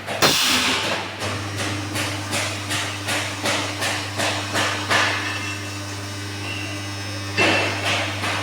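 Roller seam welding machine running: a steady electrical hum under a rapid, regular run of sharp ticks, about three to four a second, that thin out for a couple of seconds before starting again strongly near the end. There is a single loud clank at the very start.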